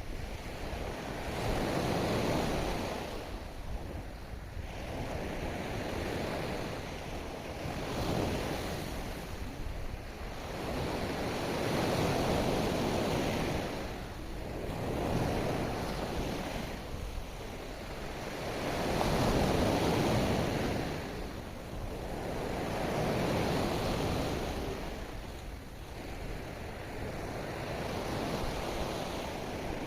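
Ocean waves breaking and washing up the shore in slow, rolling swells, one every three to four seconds, with the loudest surge about two-thirds of the way through.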